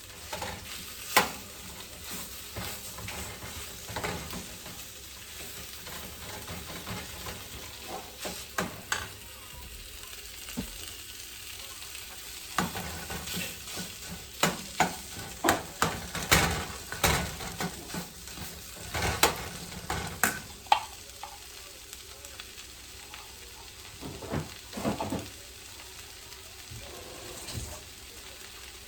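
Food sizzling in a frying pan as it is stirred, with many sharp knocks and scrapes of the utensil against the pan, coming thickest in the middle stretch.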